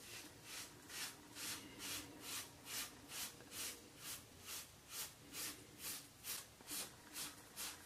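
Rockwell 6C double-edge safety razor scraping three days' stubble off a lathered scalp in short, even strokes, about two a second.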